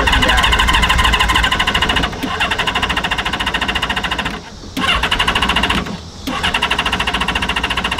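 Engine of a homemade 12-wheel amphibious ATV being cranked by its starter in repeated bursts of fast, even pulsing, with short breaks between attempts, and not starting.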